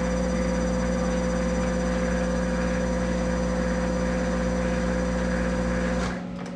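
Monarch 10EE lathe running under power through a thread-cutting pass, a steady hum with a constant whine. About six seconds in, the spindle drive is stopped quickly and the sound drops away.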